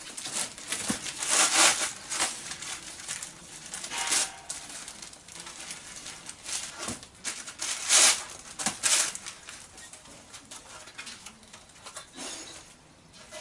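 Crumpled packing paper and cardboard rustling and crackling as they are pulled out of a box while a new motorcycle exhaust is unpacked. The crackles come in irregular handfuls, loudest about a second and a half in and again around eight seconds.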